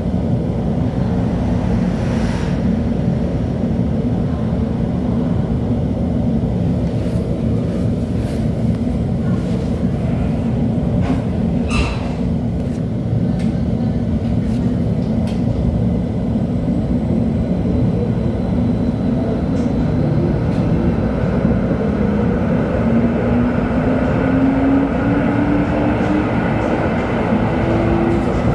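LHB TW2000 light-rail car running along the track: a steady low rumble of wheels on rails with scattered sharp clicks, and from about two-thirds of the way through a whine that rises steadily in pitch as the car accelerates.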